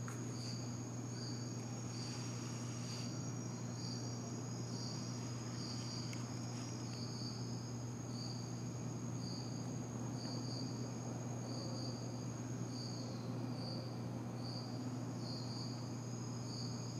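Insects chirping: one high chirp repeated a little faster than once a second over a continuous high trill, with a steady low hum beneath. It all cuts off suddenly at the end.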